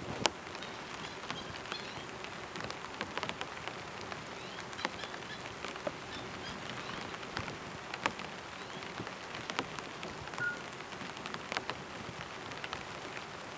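Steady rain falling on a pitched tarp, with many scattered sharp drop hits.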